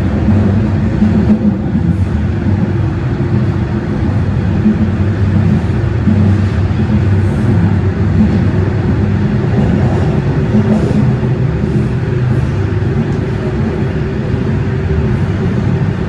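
TTC Line 4 Toronto Rocket subway train running at speed through the tunnel, heard from inside the car: a loud, steady low rumble.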